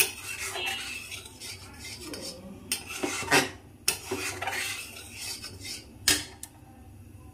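Metal spoon scraping and clinking against a stainless steel pan while stirring full-cream milk that is being boiled down thick. A run of scraping strokes with a few sharper clinks.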